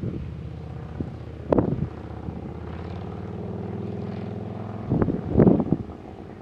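An engine droning steadily, a low hum with many evenly spaced tones. Wind gusts buffet the microphone about a second and a half in and again near the end, louder than the engine.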